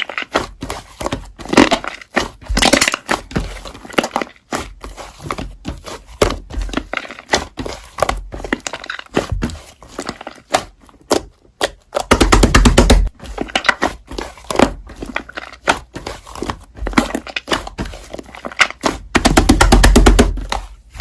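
Slime being squished and poked, making rapid crackling and clicking with soft thuds, over background music. The crackling comes in two denser, louder runs, one around the middle and one just before the end.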